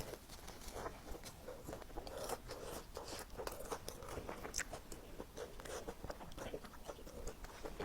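Close-miked biting and chewing of a pan-fried meat pie filled with mashed potato and juicy meat: a run of small, irregular wet mouth clicks and soft crunches.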